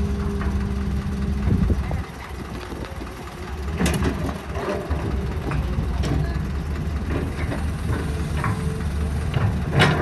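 Heavy construction machinery's diesel engine running steadily, with several sharp knocks on top, the loudest about four seconds in and just before the end.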